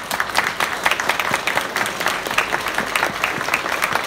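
Audience applauding, a dense patter of many hands clapping.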